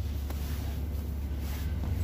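A steady low hum with a few faint soft clicks.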